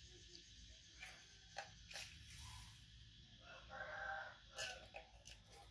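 A rooster crowing faintly once, about three and a half seconds in, with a short second note just after. Light plastic clicks and taps sound here and there.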